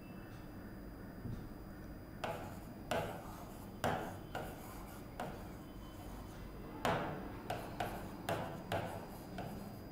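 Marker pen writing on a whiteboard: about a dozen short strokes, one after another, beginning about two seconds in.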